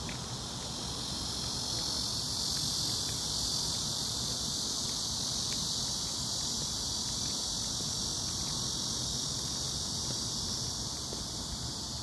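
Steady high-pitched chorus of insects buzzing, swelling slightly over the first few seconds, with a low rumble underneath.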